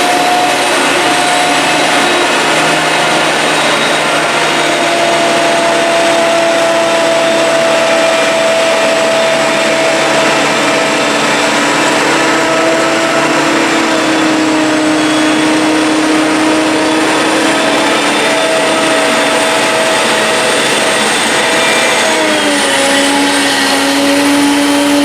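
Claas Jaguar 960 forage harvester running under load while chopping green rye: a loud, steady machine drone with a whine on top. About 22 seconds in, the pitch drops slightly and then holds steady.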